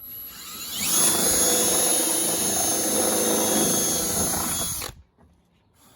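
Power drill boring a hole through a carbon fiber and fiberglass hood, one step of widening the hole little by little. The drill spins up over about the first second, runs at steady high speed with a high whine, and stops abruptly about five seconds in.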